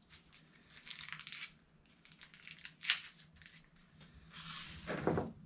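Faint rustling and crinkling handling noises, with a single sharp click about three seconds in.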